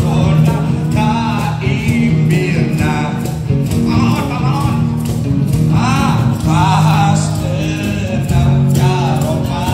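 Music: a band playing, with a man singing a melodic line over steady bass notes.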